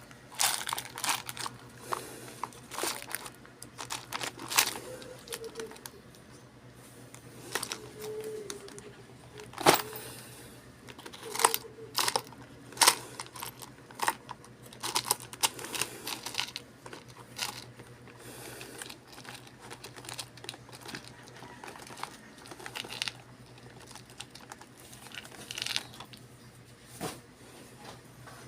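Irregular clicks, scrapes and rustling of hands and small metal parts working inside a desktop PC case, mounting a hard drive in its drive bay.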